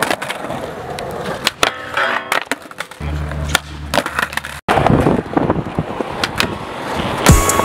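Skateboard wheels rolling on concrete, broken by several sharp clacks as the board slaps down and skids away on bailed tricks. Music with a beat comes in near the end.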